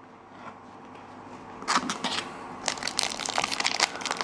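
Foil booster pack wrapper crinkling and crackling as it is handled, starting about a second and a half in, with many sharp crackles.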